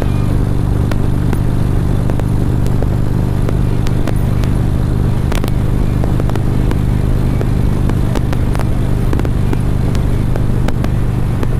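Harley-Davidson Road Glide's V-twin engine running at a steady cruising speed, heard through a helmet-mounted microphone, with wind noise and scattered crackles on the mic.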